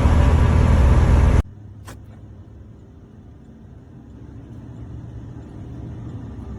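Loud road and wind noise from a vehicle at highway speed, about 60 mph. It cuts off abruptly about a second and a half in, leaving a much quieter low hum with a single click soon after.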